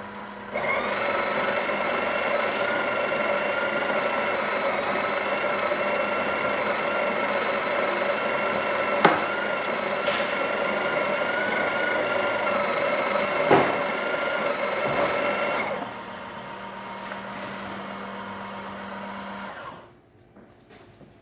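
Breville espresso machine's vibratory pump pulling a test shot: a steady buzzing hum that starts about half a second in and runs for about fifteen seconds, with a couple of light clicks. It drops to a quieter hum for a few seconds and then stops near the end.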